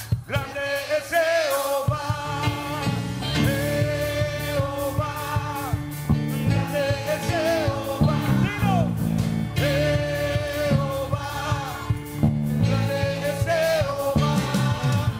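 Live church worship band playing an upbeat Spanish-language song: singing voices with vibrato over bass and a steady drum beat, the bass coming in about two seconds in, with the congregation singing along.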